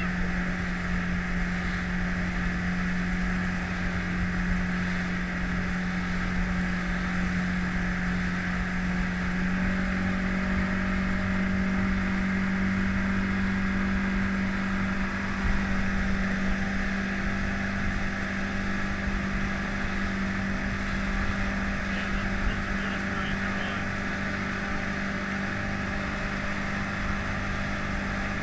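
Yamaha 130 two-stroke outboard motor running at a steady towing speed, its pitch stepping up slightly about a third of the way through, over the rush of the boat's wake.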